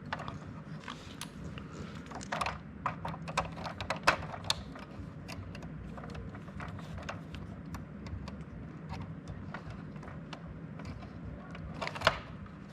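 Irregular clicks and knocks of small hard objects, thickest in the first half, with a sharp one about four seconds in and another near the end, over a steady low hum.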